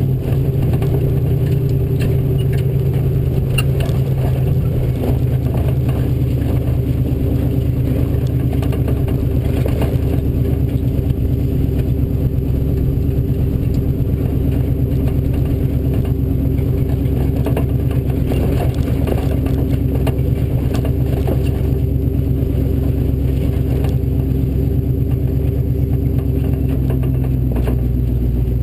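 Off-road race Ford Bronco's engine running steadily under load, with frequent rattles and knocks from the vehicle throughout.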